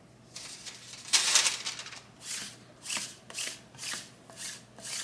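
Sticky lint roller rolled over a fleece hoodie's hood: a longer, louder rasp about a second in, then rhythmic rasping strokes at about two a second.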